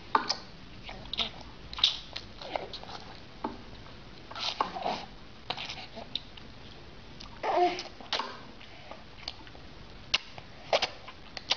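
A six-month-old baby gumming and sucking on a piece of chicken: many short wet mouth clicks and smacks, with a couple of short babbling vocal sounds.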